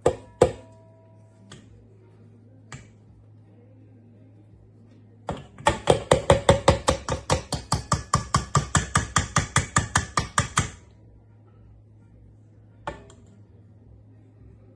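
Sponge batter being beaten in a mixing bowl: a rapid, even clacking of the utensil against the bowl, about eight strokes a second, for about five seconds in the middle. A brief click and a short two-tone beep come at the start.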